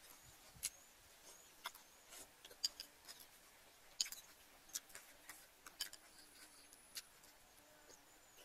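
Faint eating sounds: irregular soft clicks and smacks of a person eating soup from a spoon and bowl, with no talking.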